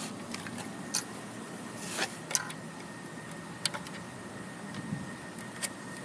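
Handling noises from an opened access keypad being put back in place: a handful of scattered light clicks and knocks of plastic and metal parts under the fingers, over a faint steady background.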